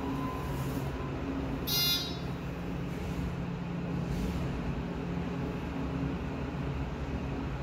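Hydraulic elevator running, a steady low hum heard inside the cab. About two seconds in, a short buzzing electronic beep sounds once.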